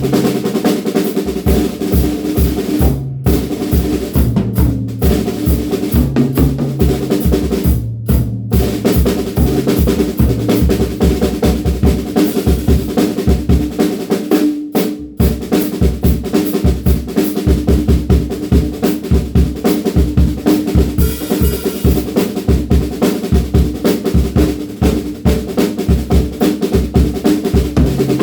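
DW Frequent Flyer drum kit played in a fast, busy groove: rapid bass drum strokes under snare and tom hits, over a steady ringing drum tone, with a few very brief breaks in the playing.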